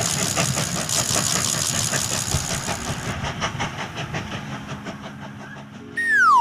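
Train passing with a rhythmic clatter of wheels over rail joints, fading away. About six seconds in, a loud whistle tone slides sharply downward in pitch, a cartoon sound effect.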